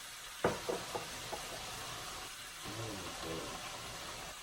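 Chicken and salmon sizzling in a frying pan, a steady hiss, with a sharp knock about half a second in and a few lighter knocks after it. A faint voice is heard in the background partway through.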